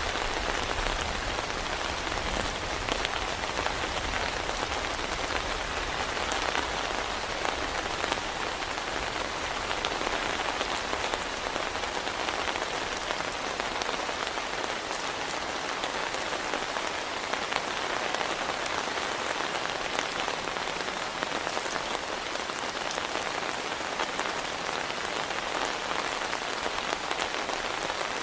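Heavy rain falling steadily, with dense individual drops striking a surface.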